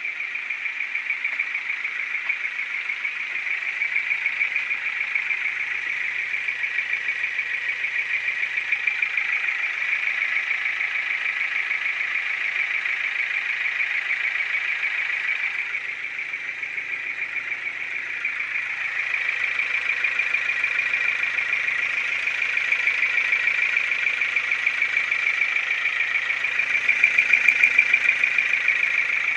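Ford Focus II's 1.6-litre, 100 hp petrol four-cylinder engine running steadily with a rapid, regular knock from inside the engine.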